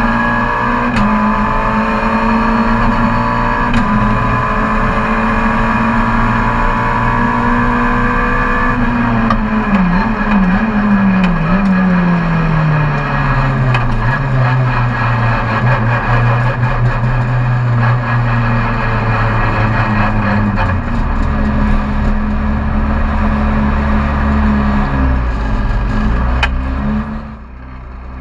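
Rally car's engine heard from inside the car, running at a high, steady pitch, then dropping in pitch with a few wavers as it slows, and settling at a lower steady note. The engine note eases and gets quieter just before the end.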